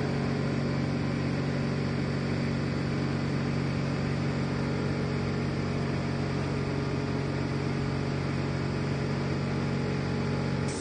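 Air compressor running steadily with a low, even hum, cutting off abruptly at the end.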